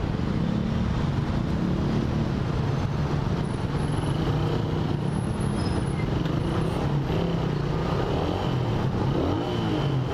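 Motorcycle engines running at low revs in slow, stop-and-go traffic, the nearest being the rider's Suzuki Raider 150R single-cylinder. A steady traffic rumble underlies it, with a brief wavering higher sound near the end.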